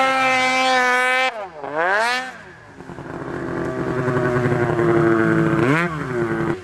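Snowmobile engine revving hard, the revs dropping and climbing again about a second and a half in, then building louder as a sled rides in close through deep powder, with a quick swoop in pitch near the end as it passes.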